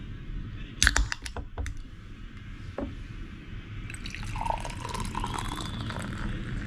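A can of Kirin Nodogoshi Zero beer is cracked open with a few sharp clicks about a second in. From about four seconds in the beer is poured into a glass, running and fizzing steadily.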